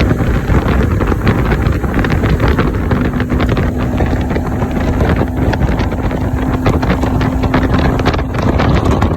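Freshly overhauled Yamaha 200 HP outboard motor pushing a fishing boat under way: a steady engine hum under heavy wind buffeting on the microphone.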